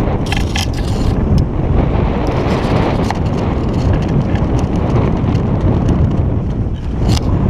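Wind buffeting a GoPro's microphone hoisted to the masthead of a sailboat under way: a loud, dense low rumble, with scattered clicks and rattles, a cluster of them just after the start and another near the end.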